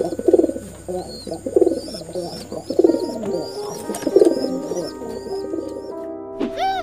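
A flock of feral pigeons cooing, repeated low coos about one a second that thin out after about five seconds, over background music.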